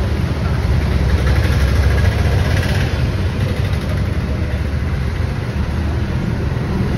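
A motor vehicle engine running close by on the street, a steady low rumble with traffic noise.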